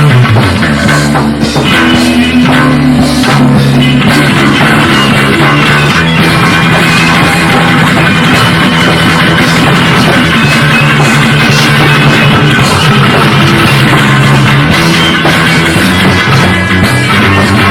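Loud improvised rock played live by a small band, with guitar over a drum kit and a bass line moving from note to note, in a raw, unmixed recording.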